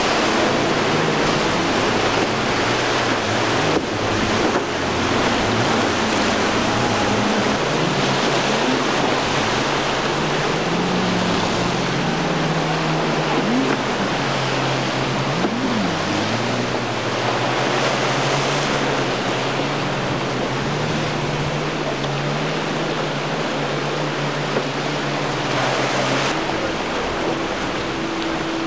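Surf and wind noise over the single Yamaha 250 hp outboard of a Boston Whaler center console running through choppy water. The engine pitch steps up and down, with brief glides about halfway through.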